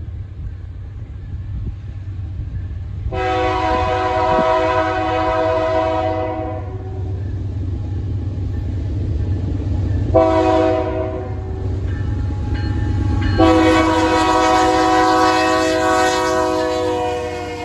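Diesel locomotive's multi-chime air horn sounding long, short, long over the steady rumble of the passing train. The pattern matches the end of a grade-crossing signal.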